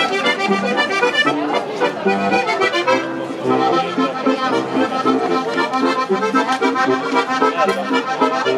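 Diatonic button accordion playing a traditional folk tune in chords, with a folk harp plucking along.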